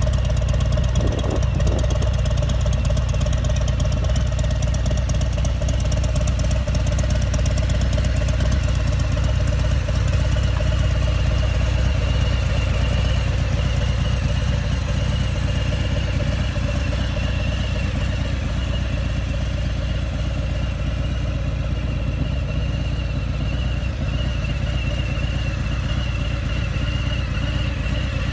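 Motorcycle engine running steadily at an even speed, with no revving.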